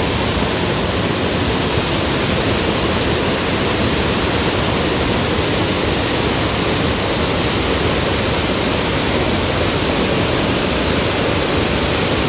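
Steady rush of a waterfall, an even unbroken roar of falling water.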